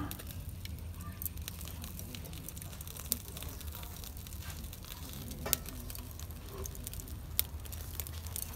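Wood and charcoal cooking fire crackling under fish grilling on a wire rack, with a few sharp pops spread through.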